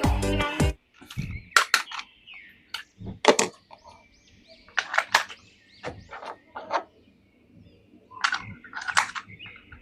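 Background music stops, then a toy action figure and its plastic packaging are handled: a scattered series of sharp plastic clicks and rattles, a few of them in quick pairs.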